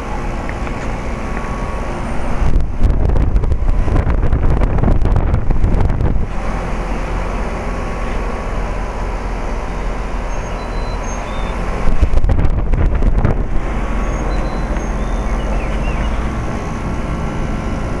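2003 Rheem Classic 1.5-ton heat pump outdoor unit running in heat mode: steady hum of the compressor and condenser fan. Wind buffets the microphone twice, about two and a half seconds in and again around twelve seconds in.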